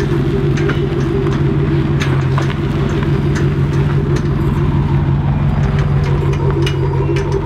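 Lifted 1990s Ford pickup truck's engine idling steadily, with a few faint clicks over it.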